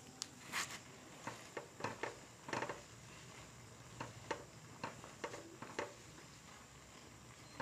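Spatula stirring chicken curry in a nonstick wok, with short, irregular scrapes and taps against the pan over a faint sizzle of bubbling oil.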